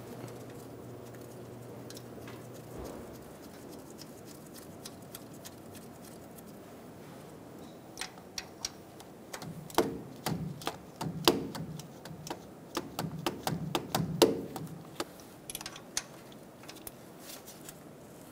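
Scattered light metallic clicks and taps of hand tools on the crankshaft position sensor's mounting bolt as it is threaded in and a socket is fitted onto it, busiest over the second half.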